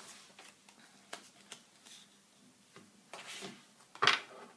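Tarot cards being handled: a few light clicks and taps, a brief rustle about three seconds in, and a louder sharp slap or snap of a card about four seconds in.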